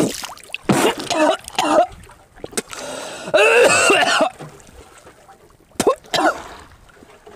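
A seasick man retching and vomiting over the side of a small boat: about five strained heaves with gasps between, the longest and loudest about halfway through, and vomit splashing into the sea.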